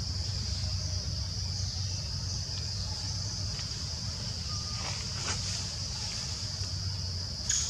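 Steady high-pitched drone of an insect chorus in the forest, over a constant low rumble, with a few faint clicks about two thirds of the way in and near the end.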